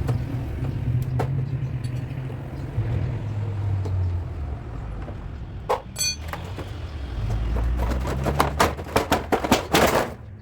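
A vehicle engine running with a low rumble, a ringing metallic clink about halfway through, and a quick run of sharp metal knocks near the end.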